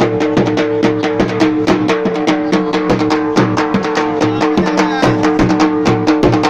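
Attan dance music: a drum beating a fast, even rhythm under a melody of long held notes.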